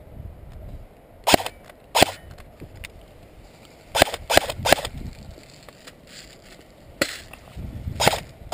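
Airsoft electric rifle firing single shots, seven sharp cracks in all: two, then a quick burst of three, then two more.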